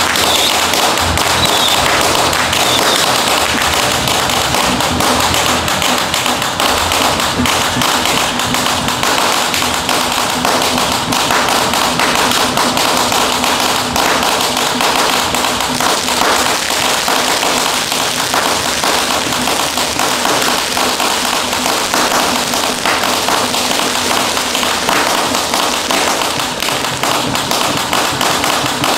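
A long string of firecrackers going off in a dense, unbroken crackle of sharp pops.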